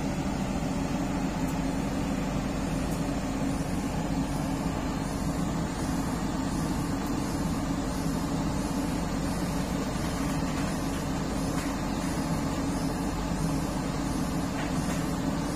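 Komatsu PC200-8 hydraulic excavator's diesel engine running at a steady speed, a constant low drone with no change in pitch or level.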